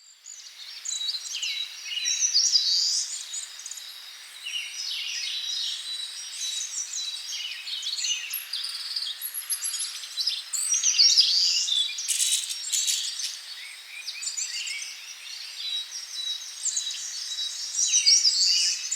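Several birds chirping and singing at once, with many short overlapping calls and trills and a thin, steady high note underneath.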